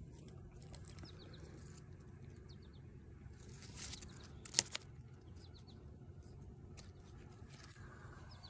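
Faint rustling of tomato plant leaves and handling noise as a hand reaches into the plant to pick a cherry tomato, with a sharp click a little past halfway through. Faint bird chirps come in a few times.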